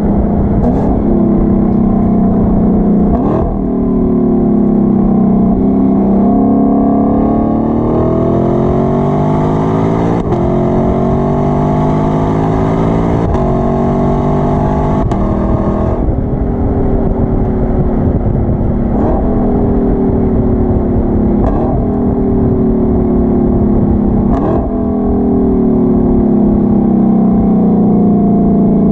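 Sports car engine revving hard under acceleration, its pitch climbing steadily for several seconds, then easing off and falling in pitch with a few quick gear changes, each marked by a short crack and a jump in revs.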